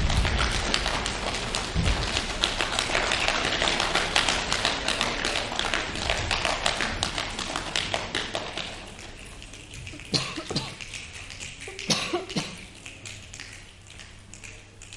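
Rain sound effect: a dense patter of many small taps that dies away over about nine seconds, leaving a few scattered taps, as the storm ends.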